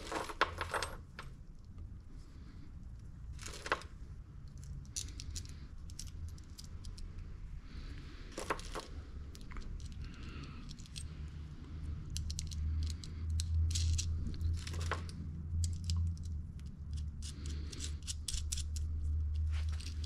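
Small steel nuts and lock washers clinking and clicking in the hand as they are fitted onto a starter solenoid's terminal studs, with light metal clicks scattered throughout. A steady low hum runs underneath and grows louder in the second half.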